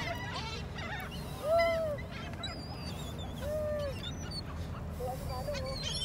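A flock of gulls calling: several short, arched cries at irregular intervals, the loudest about a second and a half in.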